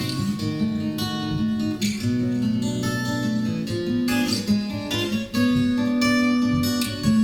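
Instrumental music with a strummed acoustic guitar, its chords changing about once a second, and no singing.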